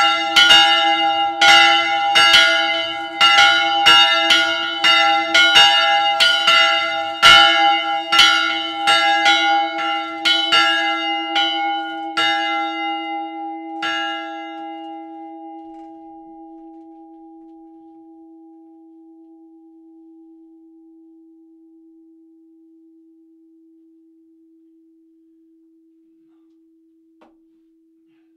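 Two church bells swinging on their wheels in a wooden belfry, clappers striking about one to two times a second at first, then weaker and further apart as the swing dies out, stopping about halfway through: the bells ringing down at the end of the peal. The low hum tone of the larger bell then rings on, fading slowly.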